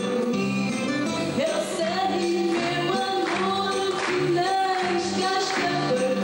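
A woman singing into a handheld microphone, with held notes, over instrumental accompaniment of low bass notes and percussion strikes.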